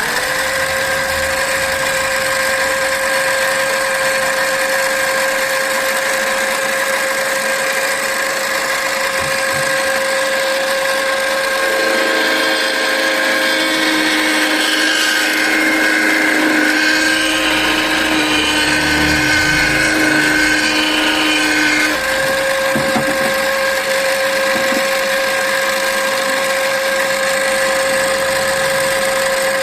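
Mini lathe motor running at a steady pitch. About twelve seconds in its pitch drops and a rough scraping noise joins as it slows under a cutting load, then about ten seconds later the scraping stops and the motor speeds back up to its earlier pitch.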